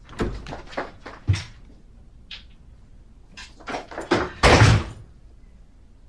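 Hotel room door: a run of latch and handle clicks, then the door shutting with a heavy thud about four and a half seconds in.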